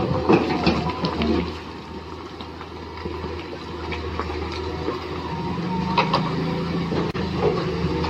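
Small electric gear motors of RC model construction vehicles whirring, with plastic clicks and knocks in the first second or so and a steady motor whine setting in about halfway through.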